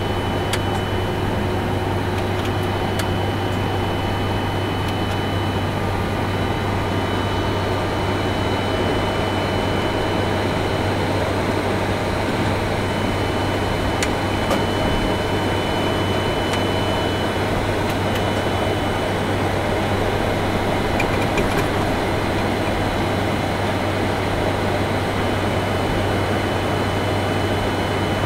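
Steady flight-deck noise of a Boeing 747-400ERF while taxiing: a constant rush of air-conditioning and idling-engine noise, with a steady low hum and a thin high whine.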